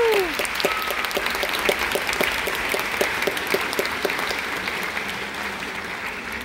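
Theatre audience applauding, a dense clapping that slowly thins and fades.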